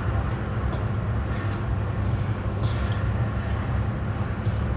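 A steady low machine hum, with a few faint scrapes from a spatula mixing brownie batter in a bowl by hand.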